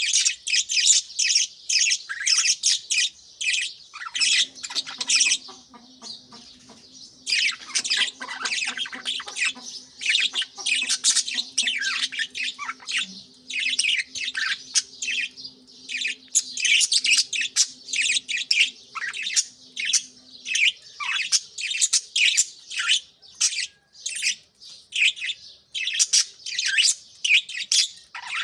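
A flock of budgerigars chirping and chattering continuously in quick, overlapping high calls. A faint steady low hum sits underneath from about four seconds in until about twenty seconds in.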